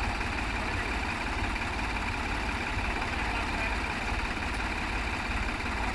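New Holland tractor diesel engine running steadily, a low, rapid rumble with no revving.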